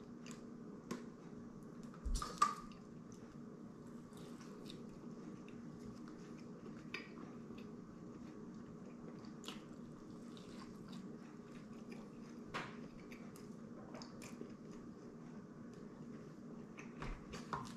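Faint eating sounds: a burger being bitten and chewed, with scattered small clicks and a few sips from a plastic water bottle, over a steady low room hum.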